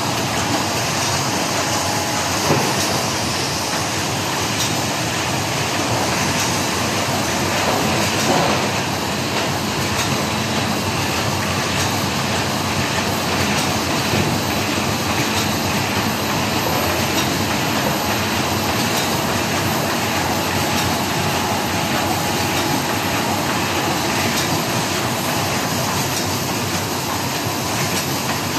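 FHS-1050 hot and cold film laminating machine running at production speed, its rollers and drive giving a steady, even mechanical noise with a faint rhythmic clatter.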